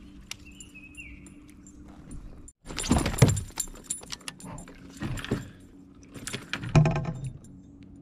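Metallic clinking and rattling of fishing tackle as a hooked smallmouth bass is lifted into a kayak and unhooked, coming in three bursts about two seconds apart in the second half.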